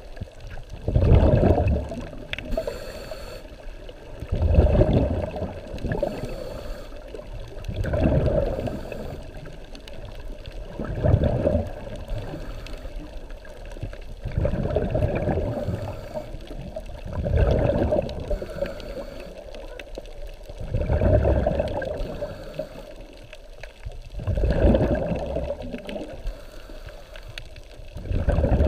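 Scuba diver's exhaled breath bubbling out of the regulator underwater, a gurgling rush of bubbles about every three and a half seconds, nine times in all.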